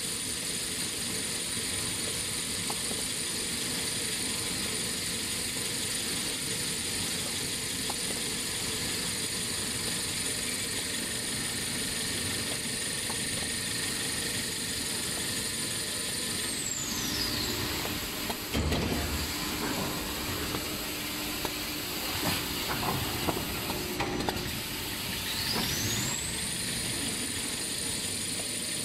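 Automatic toilet paper roll converting line running: steady machine noise under a high whine that falls in pitch a little past halfway, then a stretch of clacks and knocks from the roll handling, then the whine rises back to pitch near the end.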